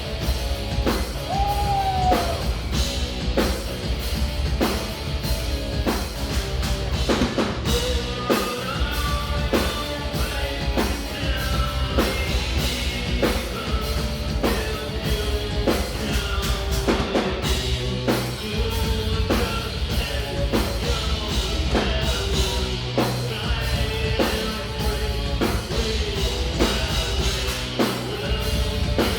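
A live progressive metal band playing loud and steady, with a drum kit hitting in a regular beat under heavy guitars and bass, and a voice singing over them.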